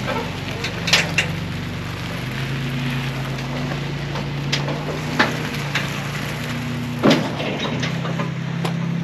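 Pickup truck engine idling, a steady low hum that shifts pitch a few times, with a handful of sharp knocks and crunches scattered through it.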